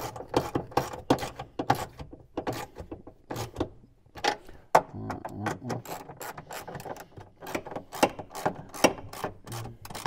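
Hand socket ratchet clicking in quick irregular runs as bracket bolts are wound in, with a short lull about four seconds in.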